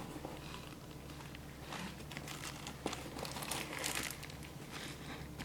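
Crinkly material rustling and crinkling in short bursts as it is handled, busiest around the middle.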